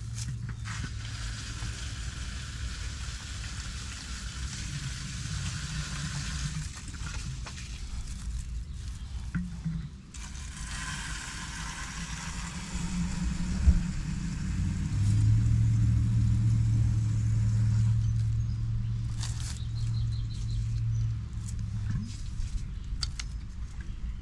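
Water spraying in two long hissing stretches while a clogged microchannel condenser coil is washed out, over a steady low hum.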